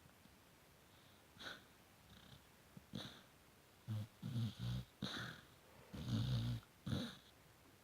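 A sleeping pet snoring and making small sleep noises while dreaming: a string of short snores and snuffles, faint at first and louder and closer together in the second half.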